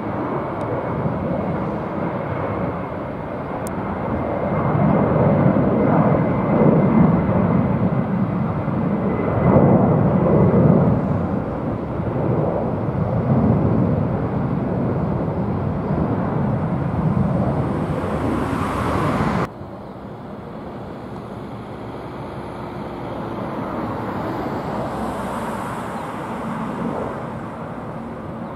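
Jet engine noise from a Boeing 767-300ER climbing out after takeoff, a loud rumble that swells and wavers. About two-thirds of the way in it cuts off suddenly and gives way to the quieter, steadier engine noise of another Boeing 767-300ER climbing away.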